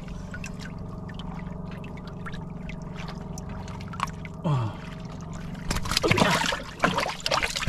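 A live grouper dropped into the water-filled hold of a small wooden boat, splashing loudly about six seconds in, over a steady low hum.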